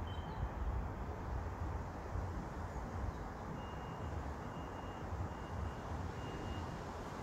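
Street ambience with a heavy low rumble, and from about halfway in a vehicle's reversing alarm beeping steadily, a single high beep a little more than once a second.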